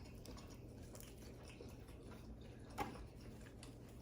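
Faint eating sounds: quiet chewing and small mouth clicks, with one short louder click about three quarters of the way through, over a low steady hum.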